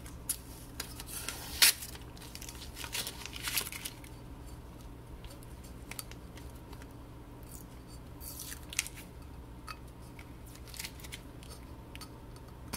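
Paper masking tape being peeled off a laser-etched drinking glass and crumpled in the hand: crackling rips, densest and loudest in the first four seconds, then scattered lighter crinkles. A low steady hum runs underneath.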